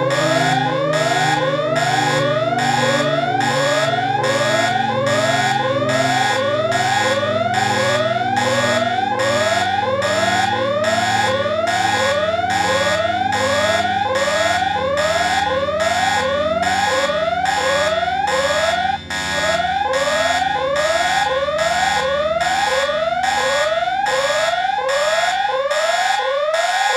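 Emergency alert (EAS) alarm tone: quick rising sweeps repeat about twice a second over a lower chord of tones that slowly falls in pitch. It sounds steadily and loudly, with one brief drop-out about two-thirds of the way through.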